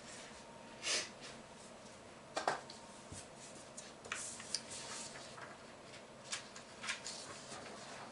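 Light knocks, clicks and rustles of a pressed-wood doorknob set with its metal shank and spindle being handled, the sharpest knock about two and a half seconds in.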